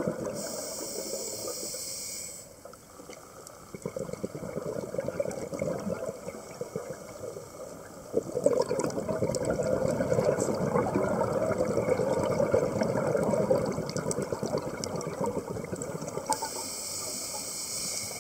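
Scuba diver breathing through a regulator underwater. There is a high hiss of inhalation near the start and again near the end, and the crackling rush of exhaled bubbles in between, loudest in the middle.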